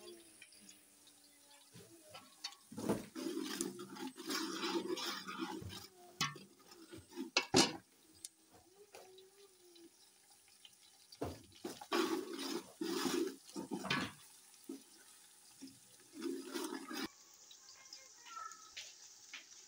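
Steel spoon stirring and scraping sliced onions frying in oil in a steel pot, in several bursts with a sharp clink about seven seconds in, over a steady sizzle.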